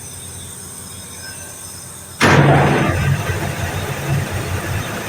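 Package air-conditioning unit switched on about two seconds in: a sudden loud start, then it keeps running with a heavy low hum and rushing noise. This is the excessive running noise the technicians are trying to trace.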